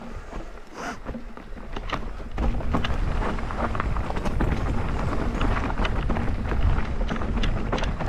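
Mountain bike rolling over a rough trail: a dense clatter of knocks and rattles from tyres and bike on the rocky ground over a low rumble, getting louder about two and a half seconds in.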